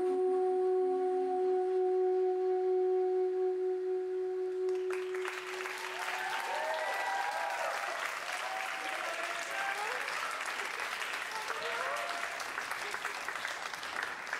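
The music ends on one long held note that fades out, and about five seconds in an audience breaks into applause with cheering that lasts to the end.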